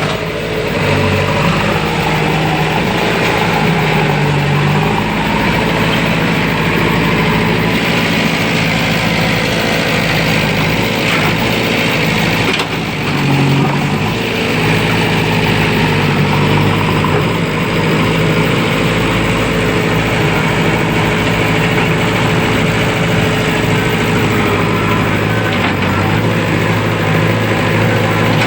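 Diesel engine of a JCB backhoe loader running steadily, with a short dip in level about halfway through.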